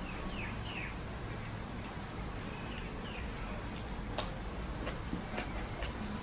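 Eating sounds from a person eating rice and curry by hand: soft mouth and chewing noises, with a sharp crunch from biting into raw cucumber just after four seconds and a few fainter clicks after it. A bird gives several short, falling chirps in the first three seconds.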